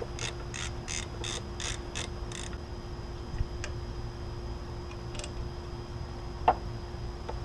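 Ratchet wrench clicking in a run of short, even strokes, about three a second, for the first two and a half seconds, as a fastener is turned. Near the end comes a single sharp knock.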